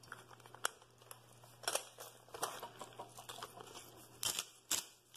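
A metal spoon stirring a wet mix of diced fruit, cucumber and shrimp in a metal bowl, with soft stirring noise and a handful of irregular sharp clinks of the spoon against the bowl.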